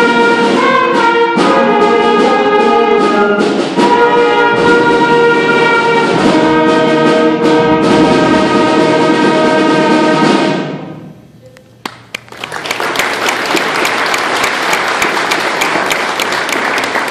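Sixth-grade school concert band of woodwinds and brass (clarinets, saxophones, flutes, French horn) playing held chords, the band cutting off its last chord about ten seconds in. After a short pause, the audience applauds.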